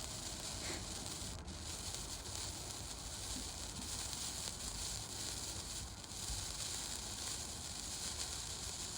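A burning sparkler hissing steadily.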